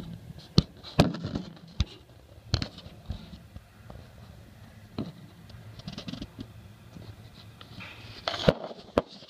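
Handling noise from a phone held close against a metal aircraft wing: scattered sharp clicks and light knocks over a low rumble, with a short cluster of knocks near the end.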